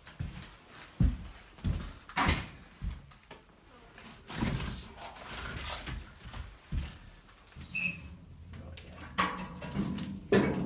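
Irregular knocks and thumps with some rustling and a few brief squeaks, like gear being handled and set down.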